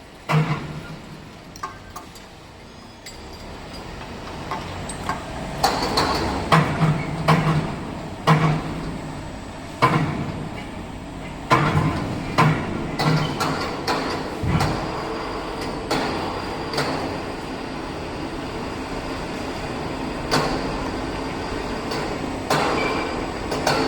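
Machinery running in a metal fabrication workshop, with repeated sharp metal clanks and knocks over a steady mechanical drone that builds up after the first few seconds; a faint high whine joins later.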